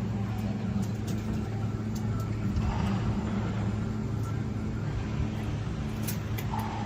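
Steady low mechanical drone, like an engine running, with a few faint light ticks over it.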